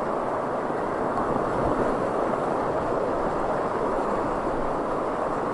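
Steady rush of whitewater in mountain-river rapids, heard close up from a small raft running through them.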